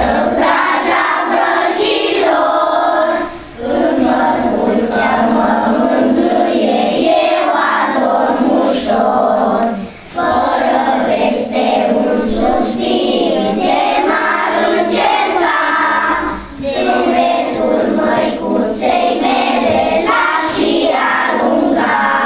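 A class of young children singing a song together in chorus, with short breaths between phrases about 3, 10 and 16 seconds in; the singing stops near the end.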